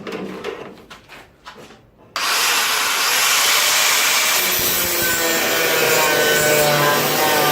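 A few light clicks and knocks, then about two seconds in a power tool starts abruptly and cuts steadily into the car body's sheet steel with a loud, even rasping noise.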